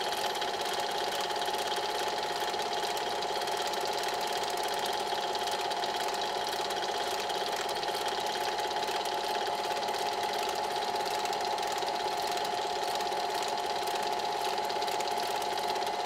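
Steady whirr and fine rapid clatter of a running 8 mm film projector, even and unchanging.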